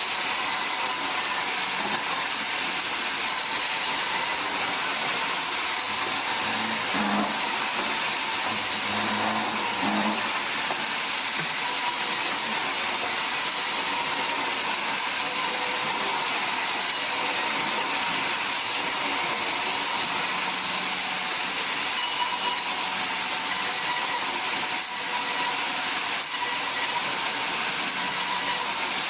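Sawmill machinery running steadily, a constant hissing noise with faint high tones and no breaks.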